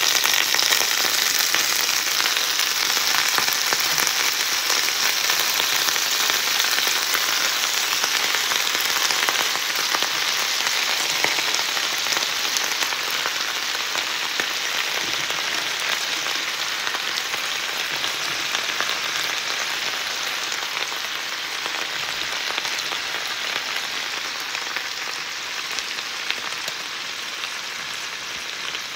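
Freshly washed kale flowers and white chard sizzling in a pan of hot sesame oil and garlic: a loud, dense crackling hiss that slowly dies down.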